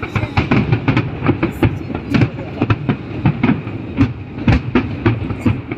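Fireworks going off in a rapid barrage, sharp bangs and crackles several a second over a low rumble of booms.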